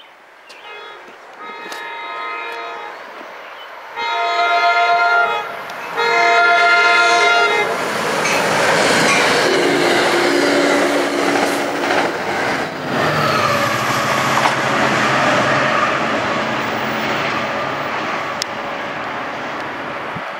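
NJ Transit passenger train sounding its horn as it approaches the station: fainter calls at first, then two long, loud blasts about 4 and 6 seconds in. The train then passes close by with a steady rumble and clatter of wheels on rail.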